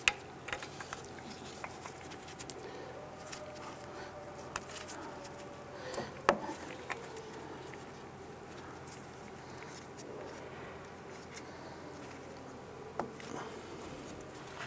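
Scattered light clicks, taps and rustling from gloved hands handling the ABS wheel-speed sensor wire and snapping it into its plastic retaining clips on the steering knuckle. The sharpest clicks come right at the start and about six seconds in.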